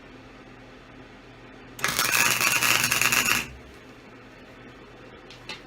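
Electric welder striking an arc for a tack weld on steel: about a second and a half of loud, crackling arc starting a little under two seconds in, over a steady low hum.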